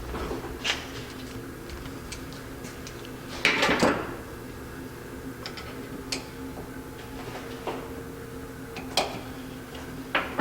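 Small metal carburetor parts and hand tools clicking and clinking on a workbench while a single-barrel carburetor is taken apart, with a louder clatter about three and a half seconds in. A steady low hum runs underneath.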